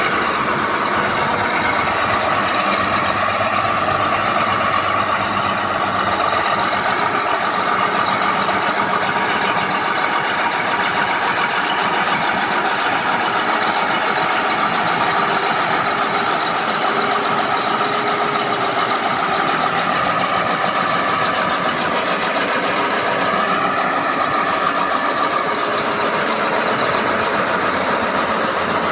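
Bulldozer's diesel engine running steadily under work.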